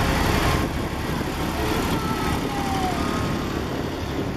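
Ford 4000 tractor engine running slowly as the tractor drives past, loudest at first and fading as it moves away.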